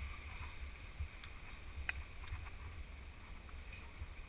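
Steady rush of a fast-flowing flooded river, under a low, uneven rumble from the camera being jostled, with a few sharp clicks.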